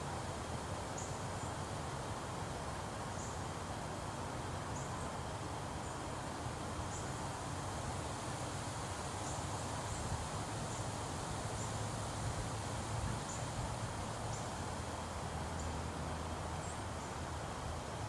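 Quiet outdoor pond ambience: a steady low rumble under an even hiss, with faint, short, high-pitched chirps repeating about once a second.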